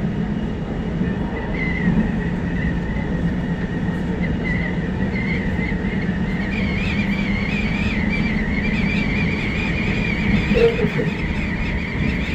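Hakodate Liner rapid electric train running at speed: a steady rumble of wheels on track, with a wavering high whine that climbs slowly in pitch.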